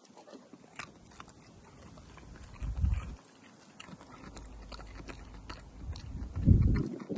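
A dog crunching and chewing a piece of raw cucumber: a run of short, crisp crunches. Two louder low rumbles swell up, about three seconds in and again near the end.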